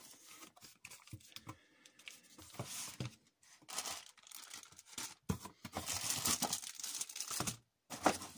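Plastic packaging crinkling and rustling as plastic-wrapped items are pulled out of a cardboard shipping box, with a few light knocks. The crinkling is loudest in the second half.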